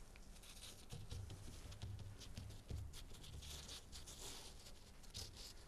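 Faint rustling and light taps of gloved fingers pressing and smoothing a patch of glass cloth onto the epoxy-coated fibreglass panel, irregular and soft.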